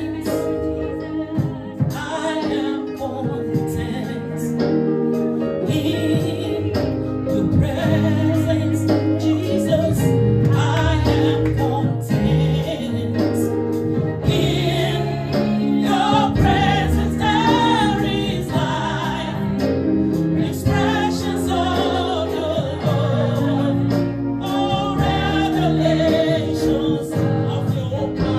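Gospel choir singing a worship song, a female lead vocalist on microphone over the group, with sustained keyboard accompaniment.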